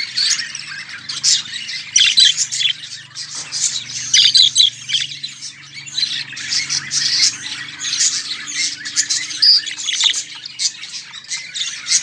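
Budgerigars chirping and squawking in a dense, continuous chatter of many short high calls, over a faint low hum.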